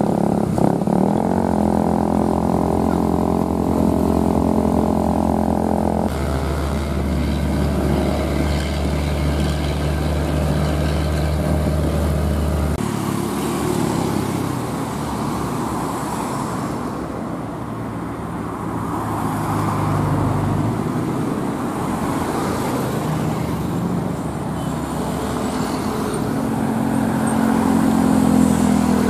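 Road traffic on a hill road: vehicle engines running steadily, with a Hino 500 truck's diesel engine and passing cars and motorcycles. The sound changes abruptly about six seconds in and again about thirteen seconds in. Near the end a steady engine tone grows as the truck comes close.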